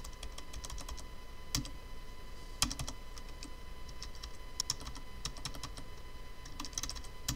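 Computer keyboard keystrokes: about a dozen separate, irregular key presses with pauses between them, some in quick pairs, as a typed command is deleted key by key and retyped.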